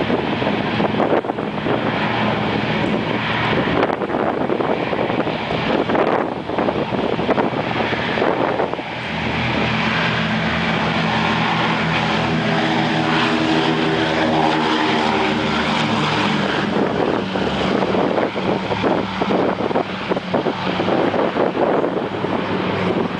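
Four Pratt & Whitney R-1830 radial engines of a B-24 Liberator running at takeoff power as the bomber rolls down the runway and passes close by. The engine note drops in pitch as it goes past, about ten to fifteen seconds in, then carries on as the plane lifts off.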